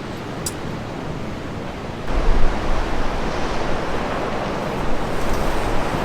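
Wind buffeting the microphone: a steady rushing noise that grows louder with a low rumble about two seconds in.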